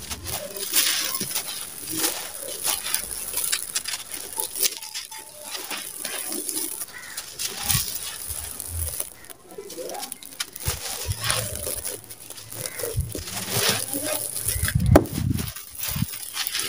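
Dry, gritty sand-and-cement mix with small stones being scooped by hand and poured and crumbled through the fingers onto a dusty floor: an irregular crunching patter of falling grains and grit, with a louder thump near the end.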